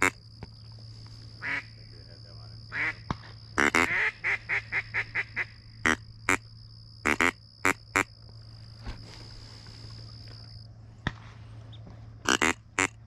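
Ducks quacking: scattered single quacks, and about four seconds in a quick run of about eight quacks that fades in loudness.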